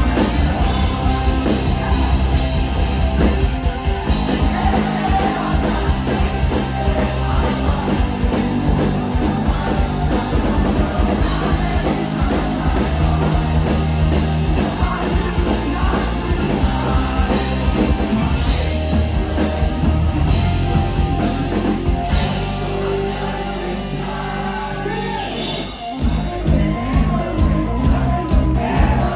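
Live rock band playing loud, with electric guitars, bass, drums and singing. About 22 seconds in the drums and bass drop out for a few seconds, then the full band crashes back in.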